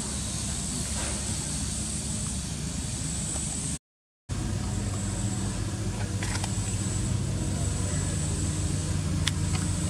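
A steady low engine-like hum with a steady high hiss above it. The sound cuts out completely for about half a second near the middle, then the hum returns with a few faint clicks.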